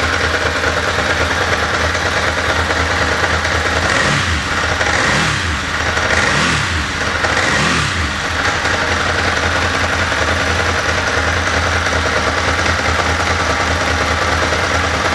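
Ducati S4R's L-twin engine, through its stock silencer, idling steadily. Blipped four times in quick succession between about four and eight seconds in, each rev rising and dropping back to idle.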